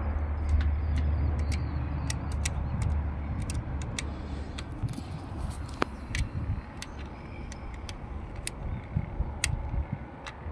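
Small, sharp metal clicks and taps, scattered irregularly, from an Allen key tightening the screws of a PTZ camera's metal mount. Under them runs a low rumble that fades after the first few seconds.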